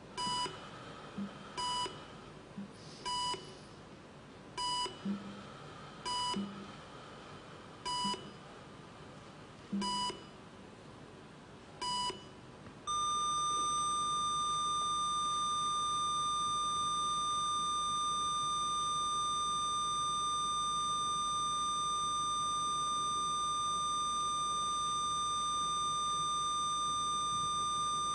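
Patient heart monitor beeping with each heartbeat, the beeps slowly spreading further apart. About 13 seconds in they give way to a single unbroken tone: the flatline, the sign that no heartbeat is detected.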